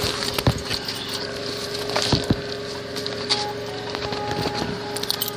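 Metal chain rattling and a padlock clicking as a wooden gate is chained and locked, with several sharp knocks against the gate.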